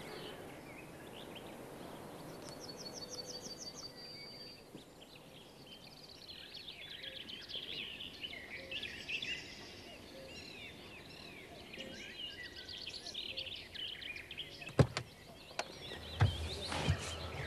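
Small birds chirping and twittering over a quiet background. About fifteen seconds in comes a sharp click, then a few knocks and a dull thud as a car door is opened.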